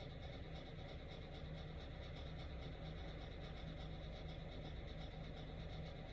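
Quiet room tone: a steady low hum with a faint, quick, evenly repeating high pulsing over it.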